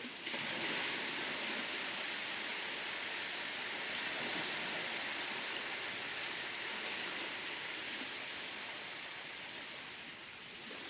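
Ocean waves making a steady hissing rush of water that sets in suddenly just after the start and eases slightly near the end.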